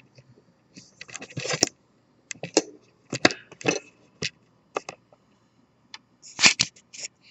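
Scattered small clicks and short scrapes of metal tweezers and fingers working a thread in among a serger's looper mechanism, the loudest near the end.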